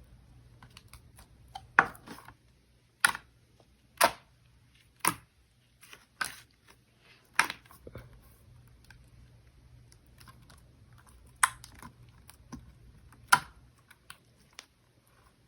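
Slime being squeezed and poked, giving sharp popping clicks, about a dozen at irregular intervals, the loudest about 2 s in and near 11 and 13 s.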